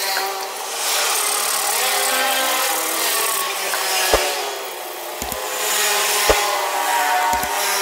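Brass propeller blade being hand-sanded with an abrasive pad: steady back-and-forth scratchy rubbing as the reshaped blade is smoothed. A few sharp knocks come in the second half.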